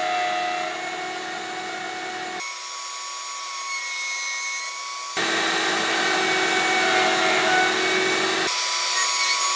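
Router motor of a horizontal mortiser running at speed as its bit cuts a mortise into a cherry leg: a steady high whine with a hiss of cutting. The sound changes abruptly about every three seconds and is louder over the second half.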